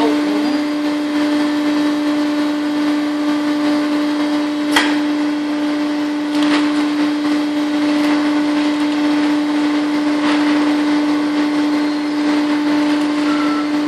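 Steady hum of an industrial bagging press and surrounding factory machinery running, with one sharp knock about five seconds in and a couple of fainter knocks later. A higher steady tone joins near the end.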